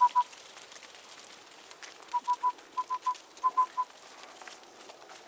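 A shepherd whistling commands to a working sheepdog: short toots, all on the same pitch. A run ends right at the start, then come three quick groups of three toots from about two seconds in.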